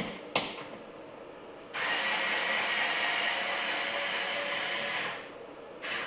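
Power drill driving the mounting screw of a garage-door wall control: a click, then the drill runs steadily for about three and a half seconds before stopping.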